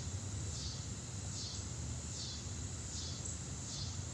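Insects calling outdoors in a steady rhythm: a high, pulsing chirp repeating about one and a half times a second, over a low steady background rumble.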